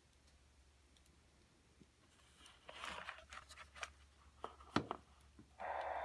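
Plastic clicks and knocks as a Nicolet Elite fetal Doppler is handled and lifted from its case, the loudest knock near the five-second mark. About five and a half seconds in, the Doppler's loudspeaker switches on with a sudden, steady hiss of static, as it sounds before the probe picks up a heartbeat.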